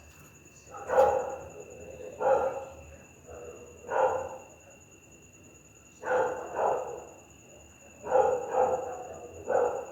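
Pit bull barking: about nine deep single barks and quick pairs at uneven intervals, with a pause of more than a second in the middle.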